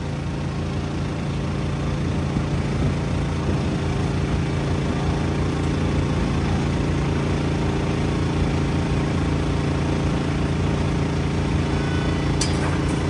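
An engine running steadily at idle, with an even, unchanging hum over street noise, and a brief click near the end.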